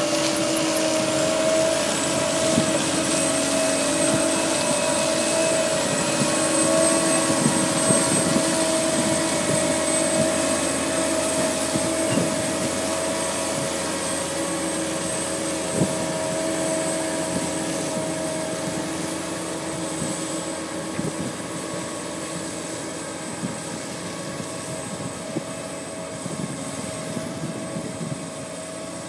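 Ropa euro-Tiger self-propelled beet harvester running as it lifts fodder beet: a steady machine hum with a high whine and occasional knocks, fading gradually as the harvester moves away.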